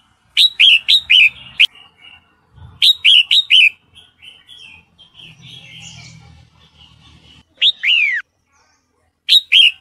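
Red-whiskered bulbul calls: loud, sharp notes that drop steeply in pitch, given in quick runs of two to four, with softer chattering between the runs. Near the end come two longer down-sweeping notes, then a last short pair. The recording is offered as a female in breeding condition calling a male.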